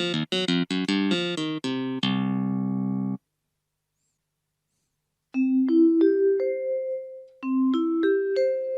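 Casio AiX keyboard playing a clavinet tone: quick notes ending in a held chord that cuts off about three seconds in. After a two-second gap, a chromatic-percussion voice plays two short rising runs of bell-like notes.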